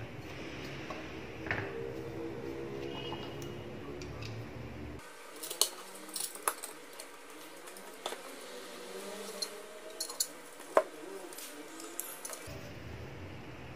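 Scattered light clicks and metal clinks of small parts and tools being handled as a flat iron is put back together after repair.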